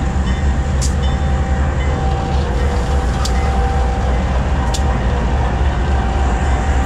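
Diesel-electric locomotives rolling slowly past at close range: a deep steady engine rumble with a steady whine over it, and three sharp ticks spread through it.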